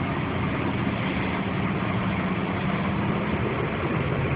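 Steady road and engine noise inside a moving car: a low engine hum under an even hiss.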